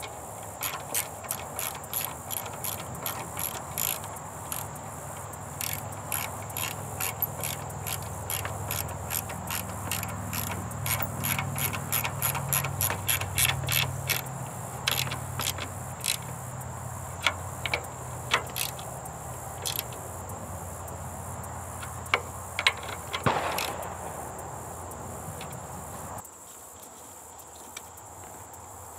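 Hand socket ratchet clicking in quick runs of strokes as a bolt at a Subaru intercooler is turned. The clicks thin out in the second half and stop a few seconds before the end.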